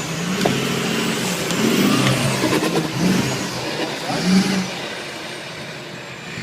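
Off-road 4x4's engine revving up and down, with a few sharp knocks and clunks along the way.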